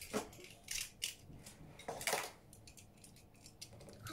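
Beyblade tops and parts being handled: a few light, irregular plastic clicks and clatters, busiest about two seconds in.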